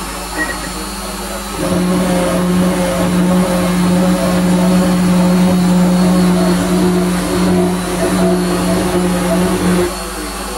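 CNC router milling a design into wood: a steady motor whine from the machine, growing louder about a second and a half in and dropping back near the end.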